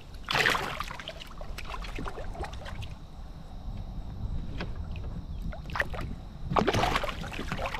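Water sloshing and lapping around a kayak, over a steady low rumble, with two louder splashes: one about half a second in and one near the end.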